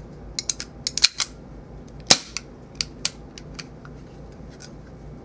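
Walther PPK/s CO2 BB pistol being worked in the hands: a run of light, irregular mechanical clicks, with two sharper, louder snaps about one and two seconds in.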